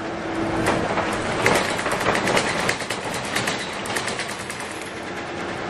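Inside a moving Scania K280UB city bus: its body and fittings rattle and clatter over the road, most busily in the middle of the stretch, over steady road and engine noise.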